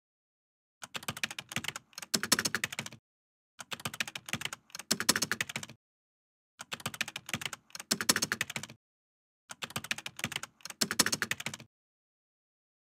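Computer keyboard typing: four bursts of rapid key clicks, each about two seconds long with a brief break in the middle, separated by dead silence.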